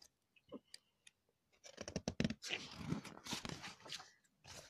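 Paper rustling and crinkling as a picture-book page is turned by hand, starting about two seconds in and lasting a couple of seconds.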